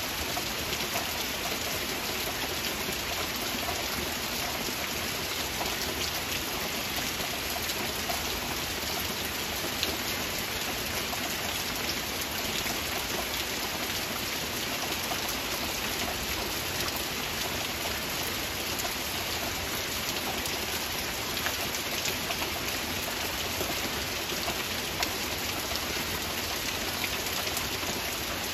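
Heavy rain falling steadily: a dense, even hiss with scattered individual drop hits.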